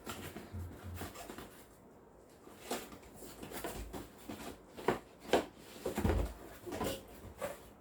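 Cardboard box and packaging being handled: scattered knocks, rubs and rustles as a steam vaporizer and its parts are worked out of a tightly packed box.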